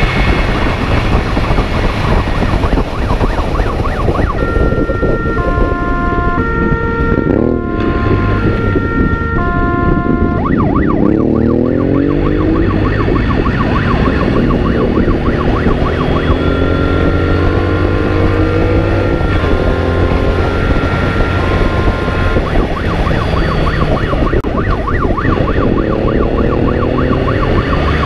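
Motorcycle engine accelerating hard up through the gears, its pitch climbing again and again with each shift, over steady wind rush. A two-tone siren alternates high and low from about four to ten seconds in, and again from about sixteen to twenty-three seconds in.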